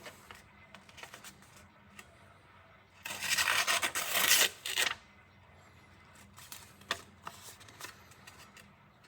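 Nakiri knife's steel blade rubbed against an abrasive during edge repair: a loud scraping stroke lasting about two seconds in the middle, with scattered light clicks and taps before and after.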